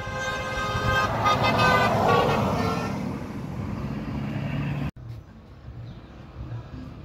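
A vehicle speeding past with its horn held in one long blast, the rush of its engine and tyres loudest about two seconds in. About five seconds in the sound cuts off abruptly to fainter road traffic.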